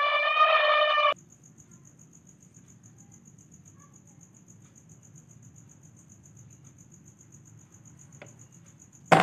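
An elephant's trumpet call, held on one pitch, cuts off sharply about a second in. Then crickets chirp in a fast, even, faint pulse over a low steady background hum, until a short loud sound at the very end.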